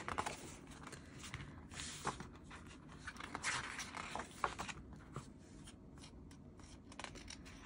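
Soft paper rustling and brief page clicks as the glossy pages of a photobook are opened and turned by hand.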